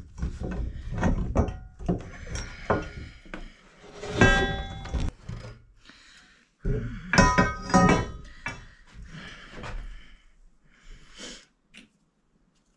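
Galvanized steel pipe and threaded fittings clanking and knocking as they are handled and worked together, with two bouts of ringing metal, about four seconds in and about seven seconds in.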